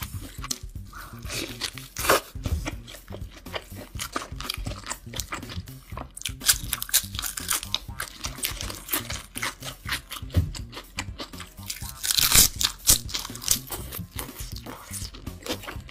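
Close-up eating sounds: wet chewing and crisp crunching of a burger with lettuce, in irregular bites. The loudest crunches come about two seconds in and again about twelve seconds in. Quiet background music plays underneath.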